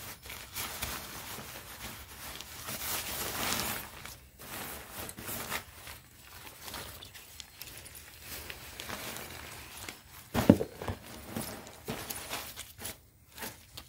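Nylon tent fabric of a Gipfel Fira 3 tent rustling and crinkling as it is pulled out of its carry bag and unrolled by hand, with one sharp knock about ten seconds in.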